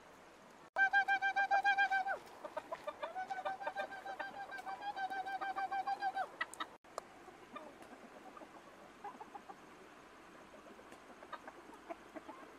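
Chickens calling and clucking with long, steady, held notes and shorter clucks, while many sharp clicks of beaks pecking at rice and fish in a wicker basket sound in between. After about seven seconds the calls stop and only quieter scattered pecking and eating clicks remain.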